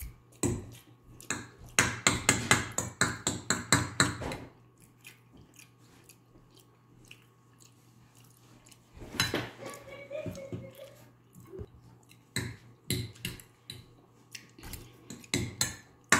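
Metal fork clinking and scraping against a ceramic bowl as pasta is scooped quickly: a rapid run of clicks for the first few seconds, a quieter stretch of chewing, then more clinking near the end.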